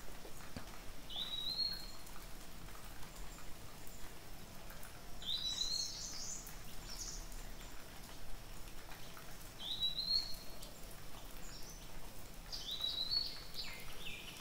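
A songbird calling, a short rising phrase repeated four times about every four seconds, over a steady background hiss.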